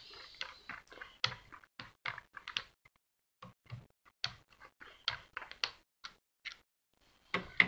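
Hand screwdriver turning a small screw out of the metal tension-arm plate of an Akai GX-747 reel-to-reel deck: a run of light, irregular clicks and ticks of the bit in the screw head, with a short pause midway and a slightly louder cluster near the end.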